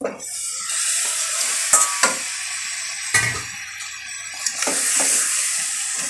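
Raw chicken pieces sizzling as they go into the hot masala in an aluminium pressure cooker. A steady frying hiss runs throughout, with a few clinks of a steel spoon against the bowl and pot.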